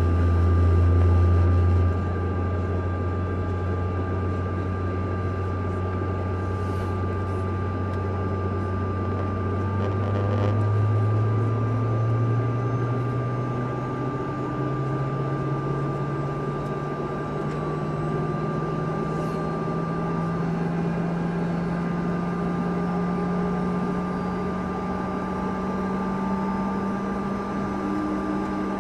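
Cabin sound of a CRJ-200 during pushback and engine start: a low drone whose pitch climbs slowly and steadily as a GE CF34-3B1 turbofan spools up, over a steady high whine. The drone is loudest in the first two seconds, then drops back.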